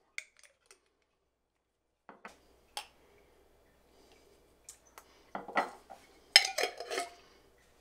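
Kitchen utensils clinking and clattering against glassware: a few light clicks, then a busier clatter in the last few seconds.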